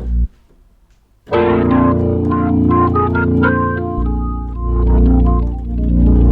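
Hammond organ being played. A held chord stops, then after about a second's pause a run of melody notes sounds over sustained chords, and a deep bass note comes in about four seconds in.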